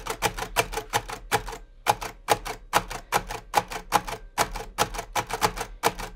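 Perkins Brailler being typed on: a rapid run of sharp mechanical clacks, about four to five a second, one per braille letter as the alphabet is embossed across a line, with a brief pause about two seconds in.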